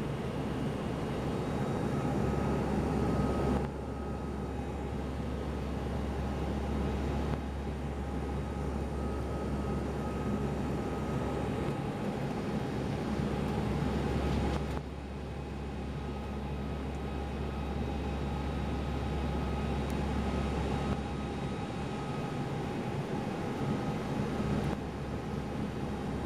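Cabin drone of an ATR 72-200's twin Pratt & Whitney PW124B turboprops and propellers in descent: a steady hum with a few steady tones above it. It shifts a little in level a few times.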